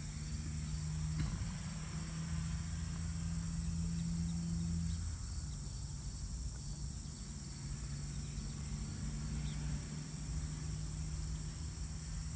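A steady, high-pitched chorus of insects in the summer pasture grass, with a steady low hum underneath.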